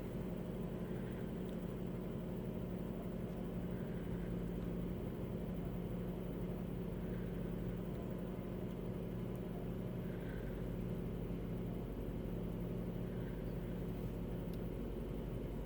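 Volvo S40 engine idling steadily with a ticking noise, which the owner hears only on a cold start or after a certain amount of throttle.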